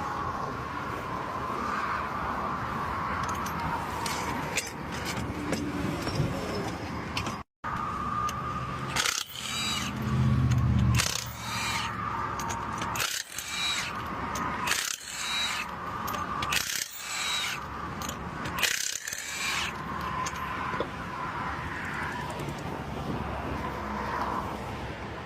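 Metal hand tools clicking and clanking in a series of sharp strokes about every two seconds, over steady traffic noise.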